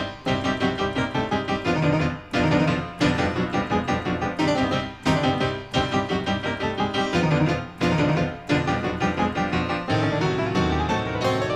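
Lively piano music played in quick runs of notes, with a rising run of notes near the end.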